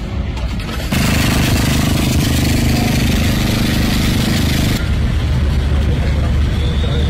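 Loud mechanical noise: a machine running with a hiss over a low hum, starting about a second in and cutting off suddenly near five seconds, over a steady low rumble.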